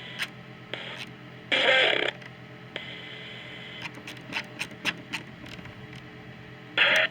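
Weather radio receiver static between broadcasts: a steady hiss with hum, scattered crackles, and two short loud bursts of garbled noise, one about a second and a half in and one near the end.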